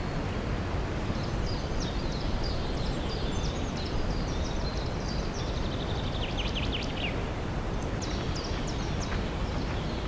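Wild birds singing: scattered short high chirps throughout, with a quick run of falling notes about five to seven seconds in, over a steady low rumble.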